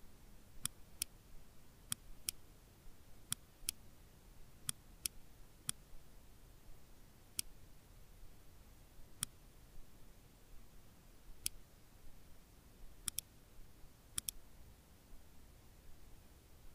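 Computer mouse clicking: a dozen or so faint, sharp single clicks at uneven intervals, with two quick double-clicks near the end.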